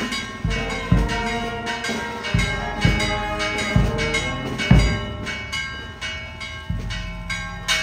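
Marching brass band playing a tune, with bass drum beats and sousaphone. The drum beats stop about five seconds in and the music thins out.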